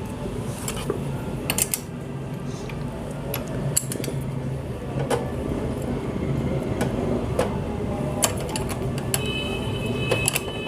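Scattered sharp metal clicks and taps of hand tools on a small motorcycle engine's valve tappet adjuster as the clearance is set with a spanner and feeler gauge, over a steady low hum.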